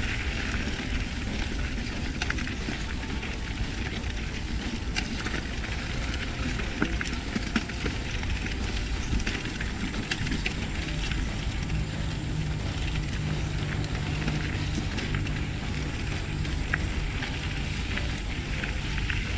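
Mountain bike rolling over a dirt trail: steady rumble of tyres on the ground, with scattered clicks and rattles from the bike.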